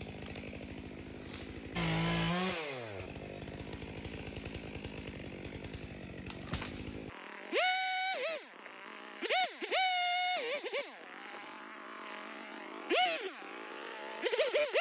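Two-stroke gas chainsaw idling with a steady low putter, revved briefly about two seconds in and dropping back. From about halfway it is throttled up again and again into a high steady whine, each burst lasting about a second, as it cuts small stems.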